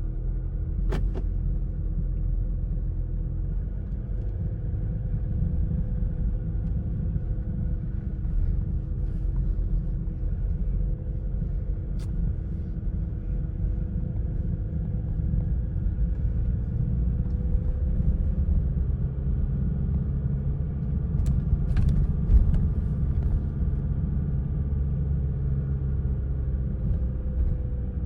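A car driving: a steady low rumble of engine and road noise, the engine note drifting slowly up and down in pitch. A few sharp clicks stand out, one about a second in and a cluster near two-thirds of the way through.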